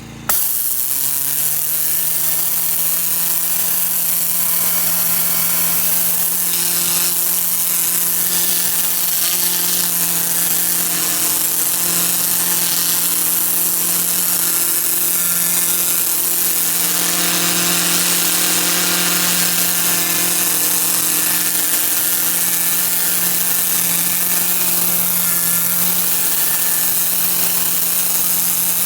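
Hot water pressure washer running with a turbo nozzle spraying: a steady machine hum under a loud hiss of the water jet. It starts abruptly, its pitch rising for the first second as it comes up to speed, then holds steady.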